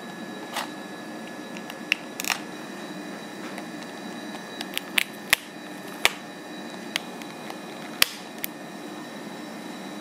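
About nine short, sharp clicks and light taps at irregular intervals, like small hard objects being handled and set down, over a steady hum of room machinery such as a fan or ventilation.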